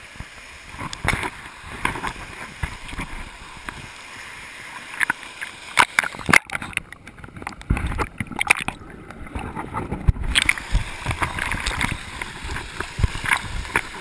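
Water splashing and sloshing at the foot of a small waterfall, close against a camera floating at the surface, with many sharp splashes. About halfway through the camera goes under and the sound turns muffled for about four seconds, then the splashing comes back clear as it surfaces.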